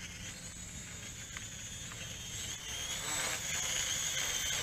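JJRC H11WH toy quadcopter hovering, its small motors and propellers giving a steady high whine over wind rumble on the microphone. The whine grows a little louder about three seconds in.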